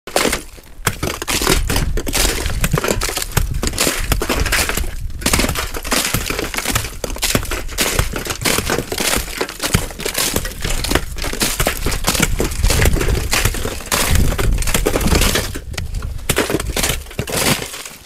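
Dense, irregular crackling and crunching of ice and snow, with a heavy low rumble underneath, lasting until shortly before the end.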